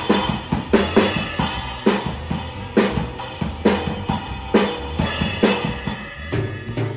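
Stagg junior drum kit played in a steady beat: bass drum, snare and cymbal hits, about two strong hits a second.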